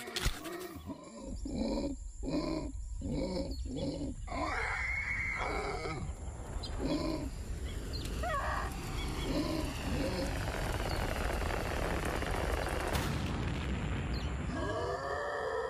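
Cartoon dinosaur sound effects: a run of short rhythmic grunts over a low rumble. Then a rushing noise swells for several seconds and ends in a sharp crack, followed by a rising vocal cry.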